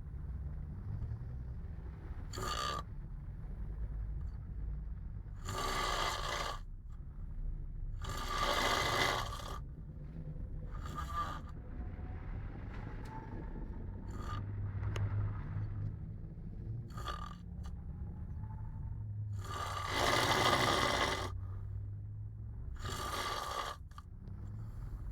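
A drunk man snoring loudly in his sleep: about eight harsh, raspy snores at uneven intervals of two to four seconds, the longest over a second, over a steady low hum.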